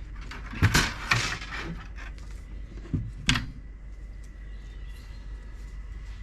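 Handling noises: a knock followed by a rubbing scrape lasting about a second near the start, then two sharp clicks about three seconds in, over a steady low hum.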